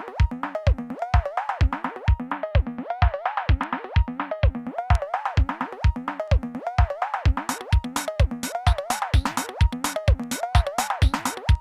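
Techno loop played on a Korg Volca Sample: a steady kick-drum pulse under a repeating figure of pitched cowbell samples whose pitch bends up and down. Brighter, hissy high percussion joins about seven seconds in.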